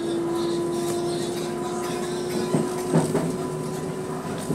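Commuter train running, heard from inside a passenger car: a steady whine that rises slowly in pitch over a rumbling hum, with a few short knocks past halfway.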